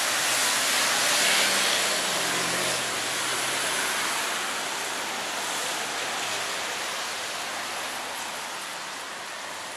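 Steady hiss of rain and traffic on a wet city street, swelling about a second in and then slowly easing off.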